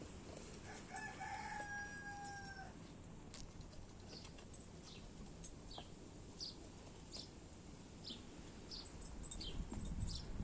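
Birds calling: one drawn-out, slightly falling call lasting about two seconds near the start, then short high chirps repeated about every second over faint background noise.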